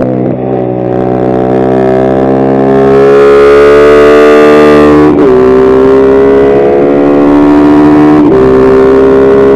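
Kayo MR150 pit bike's single-cylinder engine revving up under acceleration, with two upshifts, about five and eight seconds in, each a sudden drop in pitch before the revs climb again.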